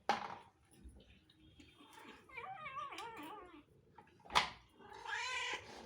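Cats meowing for food: a long cry with a wavering pitch about two seconds in, and a second, shorter one near the end. A short sharp noise comes between them.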